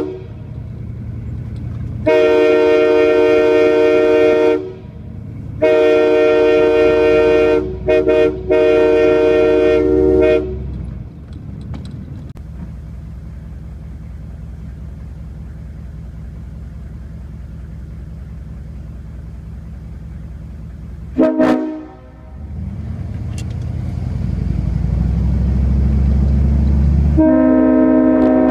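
Multi-chime locomotive air horn honking in a series of blasts: long ones at about two and six seconds, two quick toots near eight seconds, a longer blast ending around ten seconds, a brief toot near twenty-one seconds, and a long blast starting near the end. Between blasts a low engine rumble runs on and grows louder before the last blast.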